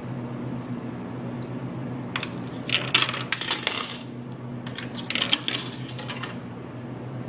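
Coins clattering down into a vending machine's change return, in two runs of jingling a couple of seconds apart, over the machine's steady low hum.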